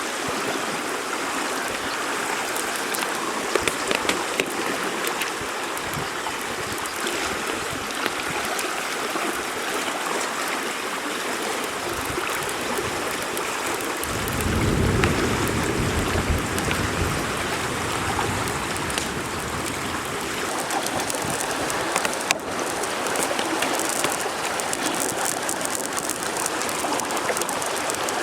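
Steady rush of a flowing river, mixed with rain falling. The fine drop ticks grow denser about two-thirds of the way through. A brief low rumble comes about halfway.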